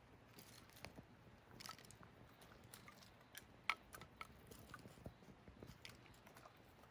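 Wood fire crackling faintly, with irregular small pops and snaps; the sharpest pop comes a little past the middle.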